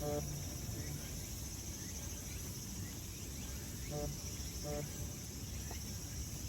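Steady high-pitched chirring of insects in an evening chorus, crickets among them. A few brief hummed voice sounds break in at the start and twice about four seconds in.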